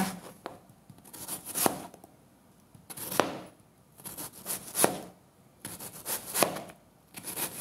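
Chef's knife slicing half an onion into julienne strips on a plastic cutting board. Each cut is a crisp crunch through the onion ending in a tap of the blade on the board, about every second and a half, five or six times.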